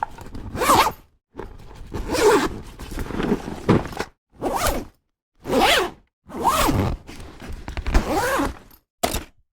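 Tool bag zipper pulled back and forth in about six quick strokes with short pauses between, and the bag's fabric rustling as it is handled.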